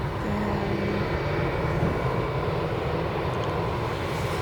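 Jet engines of a Boeing 787-9 Dreamliner coming in to land: a steady rumble with a faint high whine.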